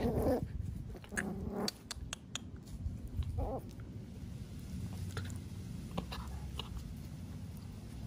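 Miniature schnauzers playing: three short growly vocalizations in the first few seconds as the puppy mouths the adult dog, then quieter with a few small clicks.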